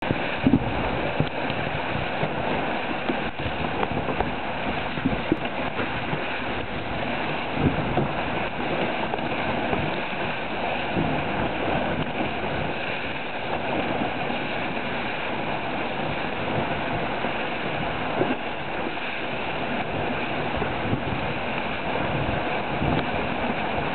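Steady rush of water along the hulls of a Dragonfly 1200 trimaran sailing fast, about 8 to 9 knots, with wind buffeting the microphone in irregular low gusts.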